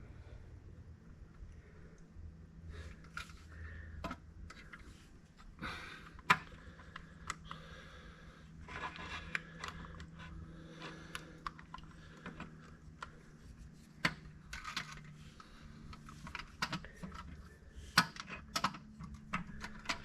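Hand tools and metal parts clinking, tapping and scraping at irregular intervals, with sharper metallic knocks about six seconds in, around fourteen seconds and near eighteen seconds, over a low steady hum.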